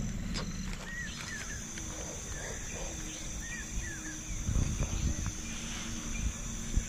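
Night forest sounds: insects chirring on one steady high note, with two pairs of short chirping calls from an animal, and a few low thuds and rustles about two-thirds of the way through.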